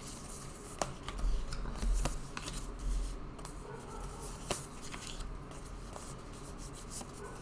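Tarot cards being handled: soft rustling with scattered light taps and clicks, about one a second.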